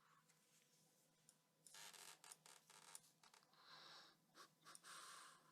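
Near silence: room tone with a few faint, brief scratchy noises.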